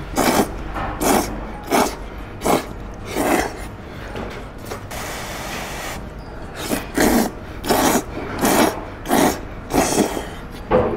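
A person slurping big mouthfuls of noodles off chopsticks in quick loud pulls, about one every half to three-quarters of a second, with a short pause about halfway through.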